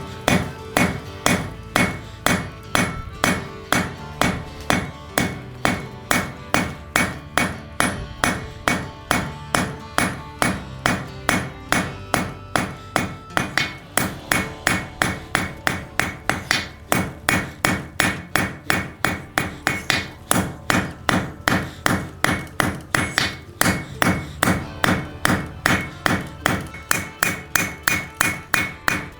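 Blacksmith's hand hammer striking hot 1/4 inch mild steel on an anvil, drawing out a point. The blows come in a steady, even rhythm of about two to three a second, each followed by a short metallic ring.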